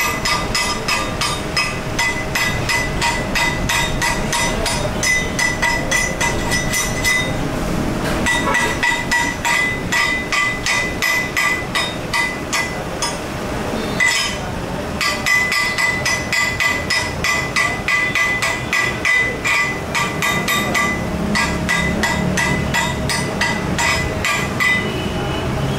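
Hammer striking steel in quick, regular blows, about three or four a second, each with a bright metallic ring. The blows stop briefly twice.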